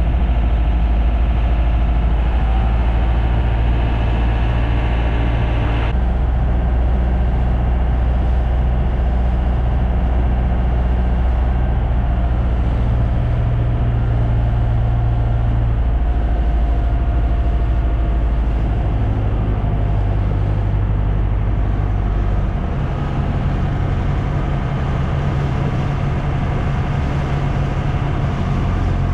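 Boat engine running steadily, with its low drone shifting in pitch a few times.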